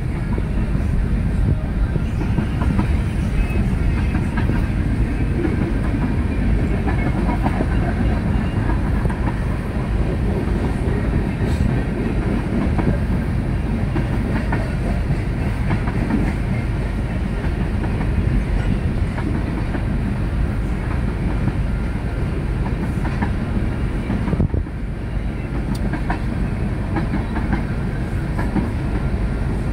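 Freight train cars, including tank cars, rolling past at steady speed: a continuous rumble of steel wheels on rail with many small clicks and clacks as the wheels cross rail joints.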